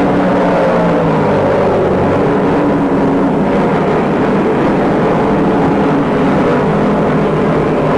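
Race car engines running at speed on the track, a steady loud drone of several overlapping engine notes. Some notes fade out about two and three and a half seconds in as cars pass.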